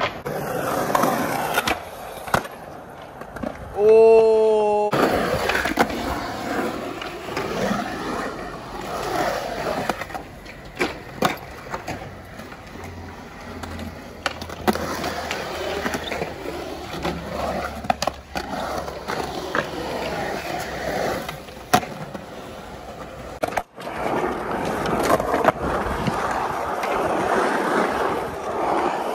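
Skateboard wheels rolling on smooth concrete, with several sharp clacks of the board's tail and wheels hitting the ground during flatground tricks. A brief wavering pitched sound comes about four seconds in.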